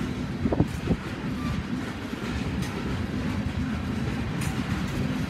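Tank cars of a slow-moving freight oil train rolling past: a steady low rumble of steel wheels on rail, with a couple of sharp knocks about half a second and a second in.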